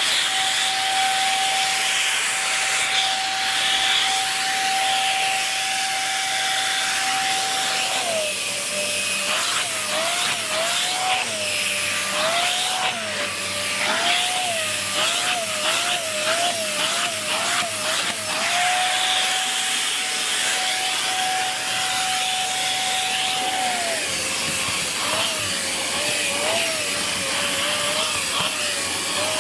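Dyson Big Ball Animal cylinder vacuum running with its turbo tool fitted straight onto the hose. The motor note holds steady for about eight seconds, then drops and keeps flicking back up as the tool is worked over the surface, with rubbing and brushing noise. This happens again for a stretch near the end.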